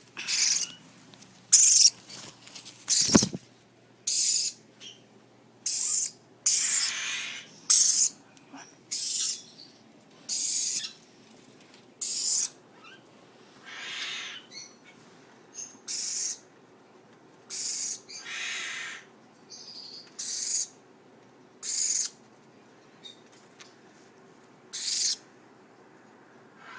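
Iris lorikeets screeching: short, harsh, high-pitched calls repeated about once a second. A single knock comes about three seconds in.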